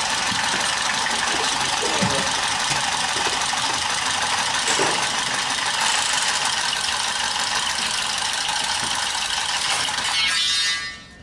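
Battery-powered tubing cutter running steadily as it cuts through copper pipe, then stopping near the end.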